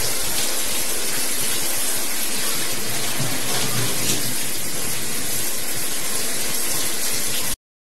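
Water running steadily from a kitchen tap into a sink, a even rushing hiss that stops suddenly near the end.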